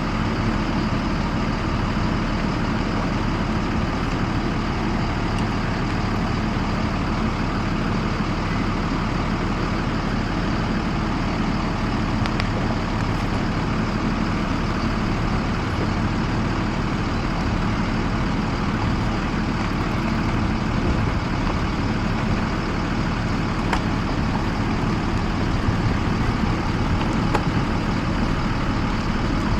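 Yellow school bus engine idling steadily.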